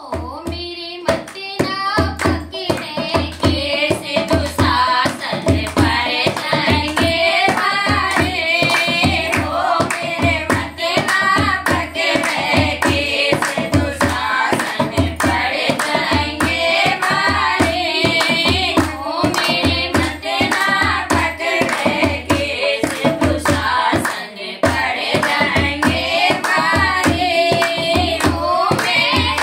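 Women singing a Hindi bhajan together, accompanied by a dholak drum keeping a steady beat and rhythmic hand clapping.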